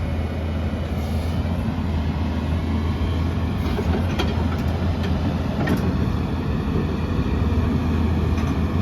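XCMG XE210CU excavator's Cummins diesel engine running steadily under hydraulic load while digging, with a few sharp metallic clanks.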